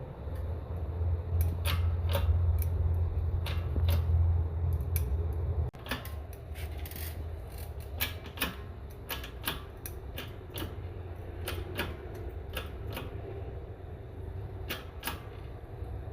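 Irregular metallic clicks and clinks of transmission parts and hand tools being handled during assembly, over a low steady hum that drops away suddenly about six seconds in.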